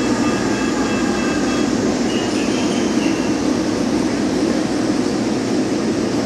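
Articulated resort tram running steadily as it rolls slowly along the station platform, a constant low hum and rumble. Faint short repeating high tones sound over it during the first couple of seconds.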